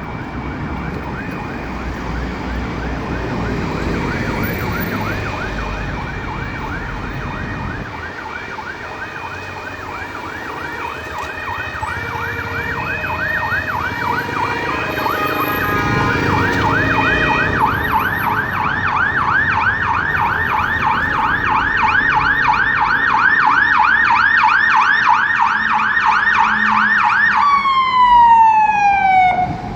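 Fire engine siren on a rapid yelp, its pitch sweeping up and down about four times a second and growing louder as the truck approaches; near the end the yelp stops and the siren winds down in one falling tone.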